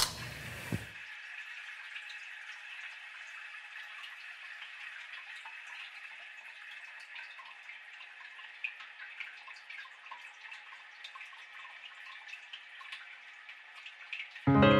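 Water running from a tap into a bathroom sink: a steady hiss flecked with small splashes and drips, after a brief louder rush at the very start.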